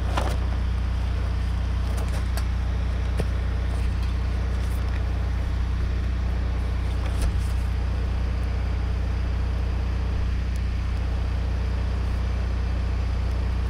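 Steady low electrical hum of an electric hot-blade tire cutter switched on and heating, with a few faint clicks as it works the rubber tread.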